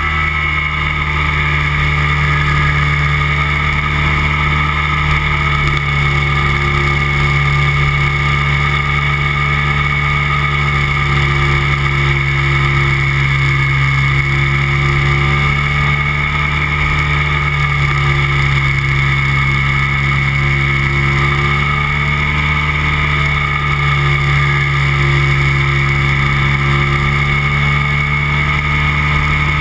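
Weight-shift microlight trike's engine and propeller droning steadily in flight, with slow, slight rises and falls in pitch.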